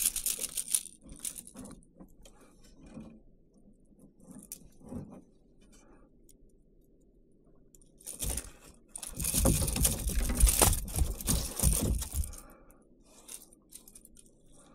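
Metal pliers and a lure's hooks clicking, rattling and scraping while a snapper is unhooked in the bottom of a kayak. A burst of clatter comes right at the start, and a longer, louder spell of rustling and knocking runs from about nine to twelve seconds in.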